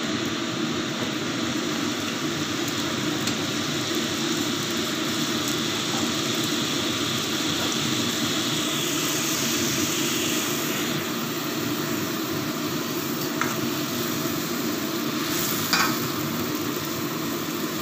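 Spiced curry gravy simmering and sizzling in a metal kadai with fried pomfret pieces in it, a steady hiss throughout. A metal spatula stirs and taps the pan a couple of times near the end.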